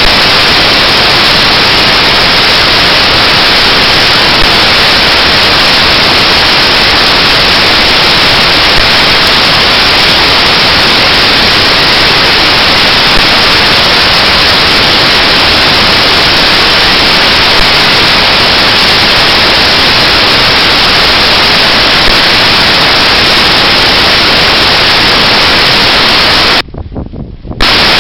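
Loud, steady hiss of static noise with no other sound in it. A faint click comes about every four seconds, and the hiss cuts out briefly near the end.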